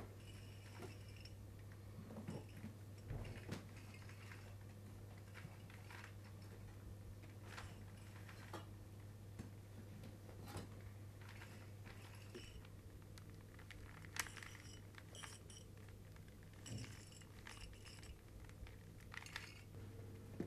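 Faint clicks, knocks and rustles of books and belongings being handled and packed into a suitcase, over a steady low hum.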